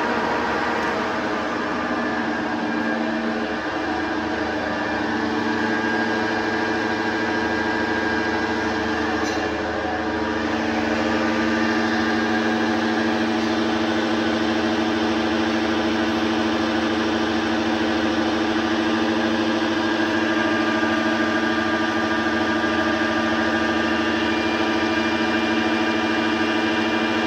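A metal lathe running steadily, its motor and gearing giving a constant hum with a noisy edge; the hum shifts and grows stronger about ten seconds in.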